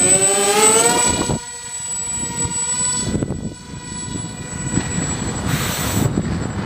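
Twin electric motors of an RC Eurofighter Typhoon model turning counter-rotating 6x4 propellers. The whine rises in pitch for about the first second and a half, then runs steady. Gusting wind buffets the microphone throughout.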